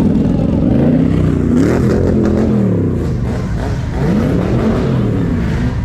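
Car engines on a slow cruise: a steady low engine rumble, with an engine revving up and back down twice, around two seconds in and again around four and a half seconds in.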